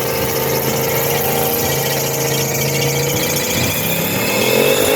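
Car engine running steadily, then dipping and revving up with a rising pitch near the end.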